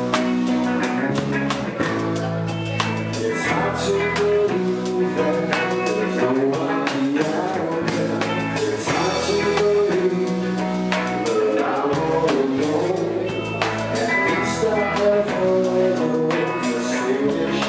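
A band playing a song with a singer over electric guitar and drum kit, running steadily at full volume.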